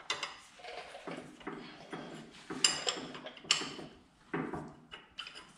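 Steel bolts and nuts clinking and knocking against a tractor's cast hydraulic housing as they are put through and run up by hand. It is an irregular string of sharp metallic clinks, the loudest two about halfway through.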